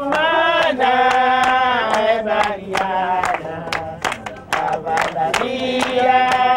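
A woman singing a melody in long held notes, with sharp percussive taps about twice a second along with it.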